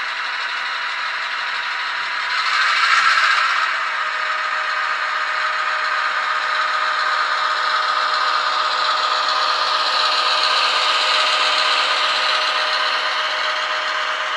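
HO-scale Athearn GP38-2W model locomotive's DCC sound decoder playing a diesel engine sound through its small speaker, thin and without bass, with the rattle of the train's wheels rolling on the track. It is loudest briefly about two to three seconds in, then stays steady as the freight cars roll past.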